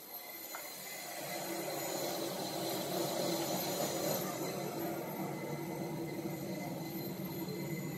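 Steady hum and hiss of a parked Airbus A320 with a thin high whine, swelling over the first two seconds and then holding steady.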